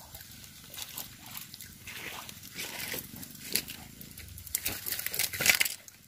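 Irregular splashing and sloshing of swamp water with sharp crackling clicks, growing busier about two seconds in.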